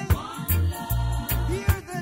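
Background music: a reggae-style song with a steady drum beat and a bass line.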